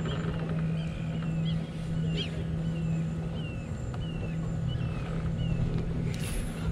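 Repeated high, chirping calls from a small animal, each a short curving chirp, about one and a half a second, over a steady low hum. A brief rushing hiss comes near the end.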